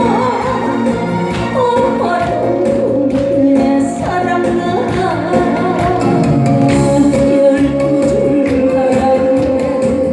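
A singer singing a Korean song with vibrato over a full backing band with a steady drum beat.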